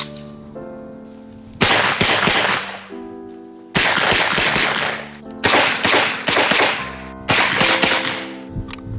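Heckler & Koch MP5 submachine gun firing four quick strings of several shots each, spaced about a second or two apart, with a ring after each string. Background music plays underneath.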